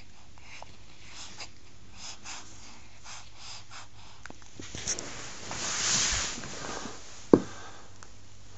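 Newborn baby's faint snuffling breaths in a quiet room, with a breathy rustling swell from about five to seven seconds in and a single sharp knock about seven and a half seconds in.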